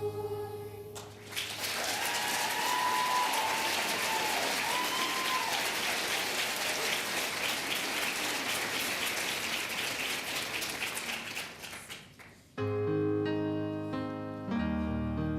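Concert audience applauding for about ten seconds as a song's last chord dies away, with a couple of cheering calls in the first few seconds. Piano music for the next number starts abruptly near the end.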